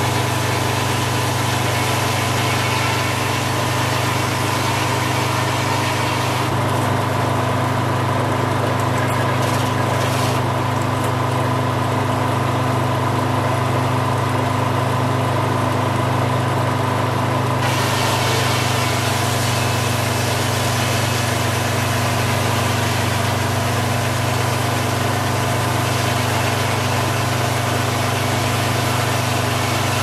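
Detroit Diesel engine running at a steady speed, driving a Frick circular sawmill while it saws a pine log. The higher hiss drops away for about ten seconds in the middle.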